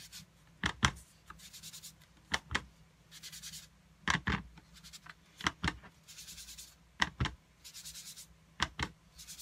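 Foam craft sponge rubbed in circles over cardstock and dabbed on an ink pad: soft scratchy rubbing, broken by pairs of sharp taps about every second and a half.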